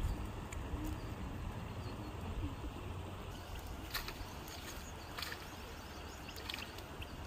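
Outdoor pond-bank ambience: a steady low rumble with a few short sharp clicks about four, five and six and a half seconds in.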